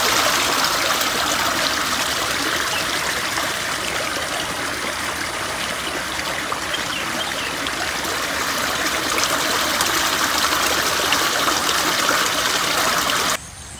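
Water flowing steadily along a shallow concrete irrigation channel, an even rushing trickle over its bed. It cuts off suddenly near the end.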